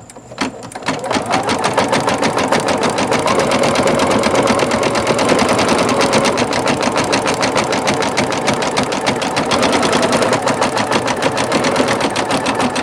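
Singer Futura XL-550 sewing and embroidery machine stitching at a steady, rapid pace, getting up to speed about a second in. The bobbin area runs without rattling or clanking: the bobbin rattle has been fixed.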